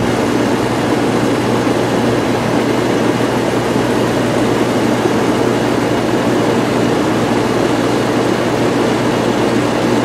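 Pool pump running steadily with water rushing through the plumbing: a constant motor hum under a dense rushing noise. The filter valve is set to waste, so the pump is flushing leftover vacuum debris out of the pipe.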